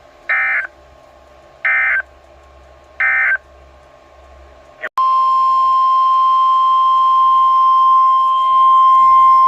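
NOAA Weather Radio emergency alert signals. First come three short bursts of SAME digital data, about a second and a half apart, of the kind that mark the end of a message. About five seconds in, a loud, steady 1050 Hz warning alarm tone begins: the attention signal sent ahead of a new warning.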